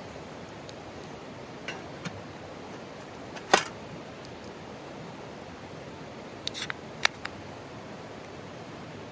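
Steady rush of a mountain stream, with a few sharp clicks and clinks of camp gear: two light ones about two seconds in, a louder one in the middle, then a short cluster and a single sharp click near the end.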